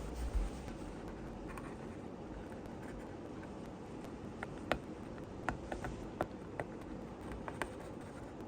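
Scattered light clicks and scrapes of hand tools and small parts being worked on at a bench, over a steady hiss.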